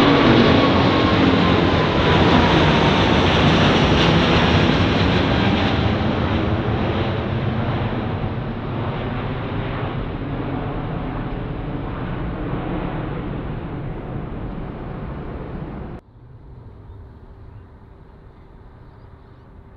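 Jet engine noise from a China Southern Airbus A380 climbing away after takeoff, with a whine that slowly falls in pitch and the overall sound fading steadily. About 16 seconds in it cuts off suddenly, leaving a faint background with a steady low hum.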